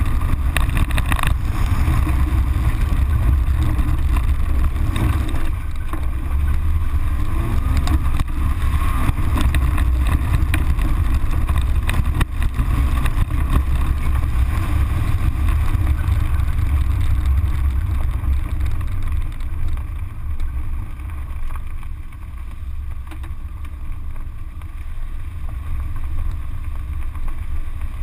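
Car driving on a dirt rallycross course, picked up by a camera mounted low outside beside the front wheel: a heavy wind rumble on the microphone over the engine and tyre noise on dirt, with a few sharp knocks from flung gravel. It quietens for several seconds in the second half, then picks up again near the end.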